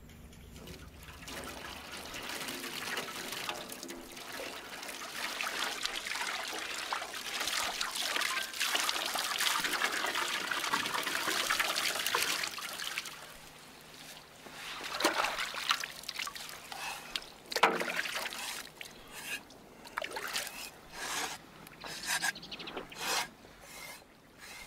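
Water trickling and pouring steadily down a big fish hung up to be washed. About halfway through the water stops, and a string of short scrapes and knocks follows as the fish is worked on with a knife.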